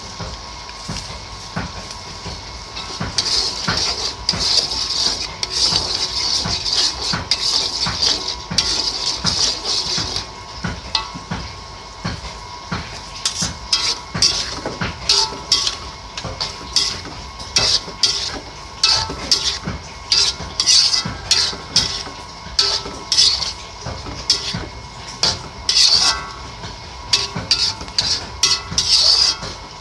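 A utensil stirring and scraping in a cooking pan, with many quick clinks and scrapes of metal on metal, thickest over the first third.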